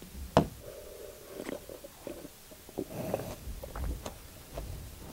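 A person gulping and swallowing a drink from a plastic cup, close to the microphone, with small wet mouth clicks.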